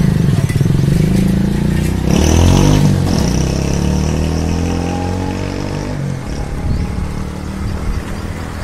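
A motor vehicle engine running nearby, its pitch sliding down and back up about two seconds in, then gradually fading.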